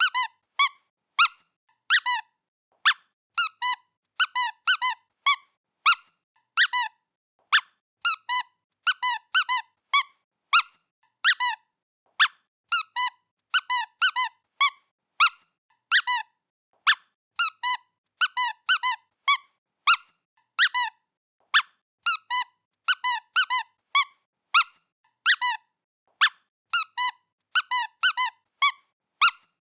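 Squeaky cat toy squeaking over and over as a cat plays with it: short high squeaks, often in quick pairs, roughly two a second.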